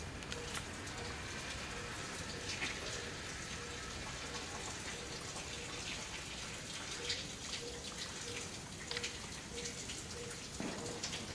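Rain pattering steadily as scattered drops, with a faint low note repeating about twice a second.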